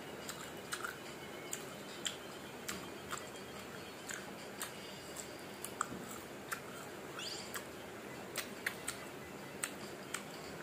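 Close mouth sounds of chewing crisp mango slices: irregular wet crunches and clicks, about one or two a second, over a steady low hiss.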